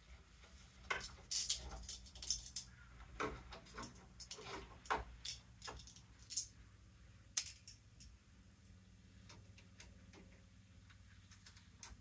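Metal clinks and clicks of a screwdriver against the metal parts of a doorknob assembly as they are handled, irregular and busiest in the first eight seconds, sparser after that.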